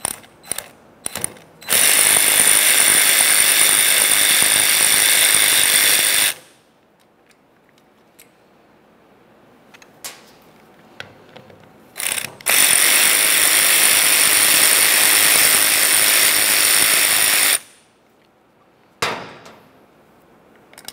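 Power driver with a T30 Torx bit running twice, each run lasting about five seconds, to back out the two mounting screws of a shift interlock solenoid. Light clicks of the bit being fitted onto the screws come before each run.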